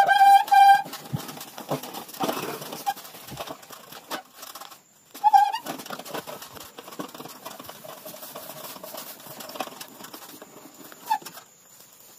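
Farm fowl calling: a held call of nearly a second at the start and a short call about five seconds in, with quieter rustling in between.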